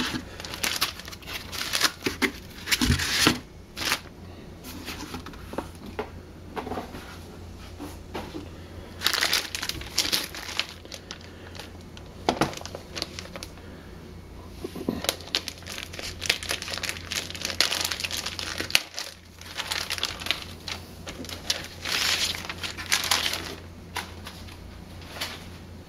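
Clear plastic packaging bag crinkling and rustling in irregular bursts as a laptop is handled and slid out of it.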